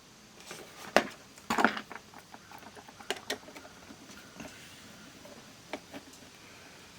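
Light clicks and rustling from handling an opened analog multimeter: a sharp click about a second in, a brief rustle just after, then a few scattered ticks.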